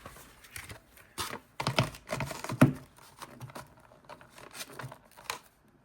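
Hands handling a collector's card holder and its box packaging: a run of light clicks and taps, the sharpest about two and a half seconds in, then a few scattered clicks.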